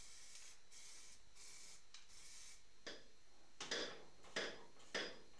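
Faint hiss of an aerosol can of weld-through primer spraying onto steel, then four short rasping scrapes of hand tools working on metal bolts.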